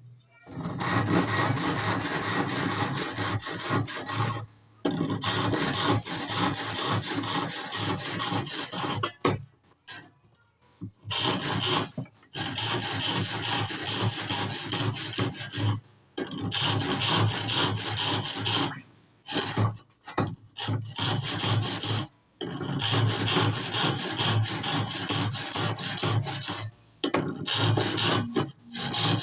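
Wood being sawn or rasped with a tool: a dense scraping noise made of rapid strokes, running in stretches of several seconds with short pauses between them.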